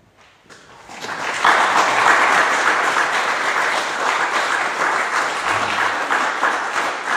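Audience applauding after a live choral performance. The clapping starts faintly, swells over about a second and then holds steady.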